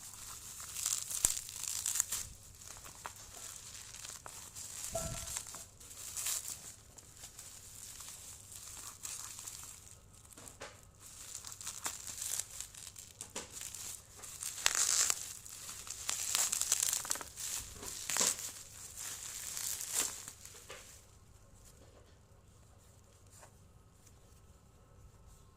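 Parcel packaging being handled, crinkling and torn open in irregular bursts. It goes quieter near the end, leaving a few light clicks.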